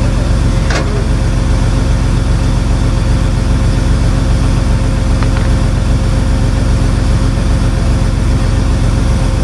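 Heavy truck engine idling steadily, with a faint click about a second in and another about five seconds in.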